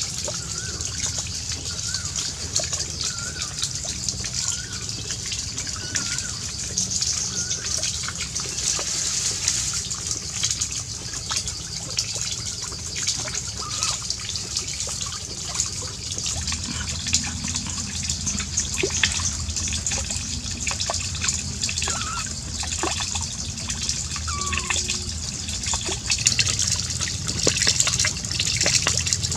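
Steady trickling and gushing of running water, with a few faint short high squeaks, most of them in the first several seconds.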